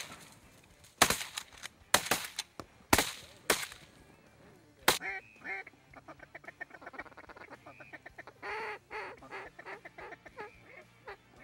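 A volley of five shotgun shots over the first five seconds, at uneven spacing, followed by rapid duck quacking in quick chattering runs.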